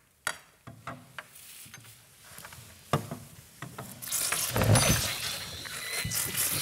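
A few light knocks, then from about four seconds in, people stifling laughter with their mouths held shut, giving loud muffled snorts and hums through the nose.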